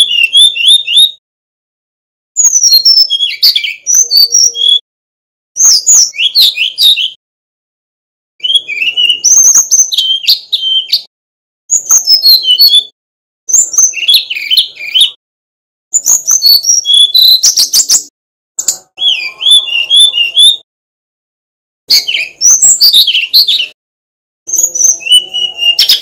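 Male brown-chested jungle flycatcher singing: about ten short phrases of quick, high, fluty whistles and trills, each a second or two long, with brief silent gaps between them.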